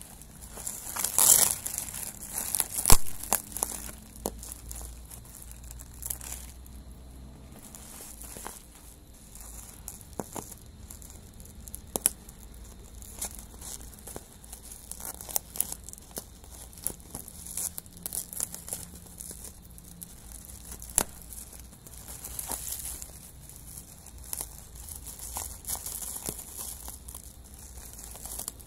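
Plastic bubble wrap crinkling and rustling as it is squeezed and cut open with scissors, with scattered sharp clicks. The crinkling is loudest in the first few seconds.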